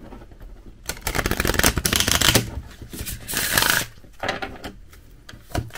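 A small, flexible oracle deck being shuffled by hand: a fast run of card flicks about a second in, a second burst around three seconds in, then a few separate clicks near the end.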